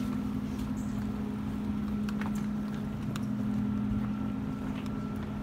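Steady low mechanical hum of running machinery, holding one pitch, with a faint higher whine above it and a few light clicks.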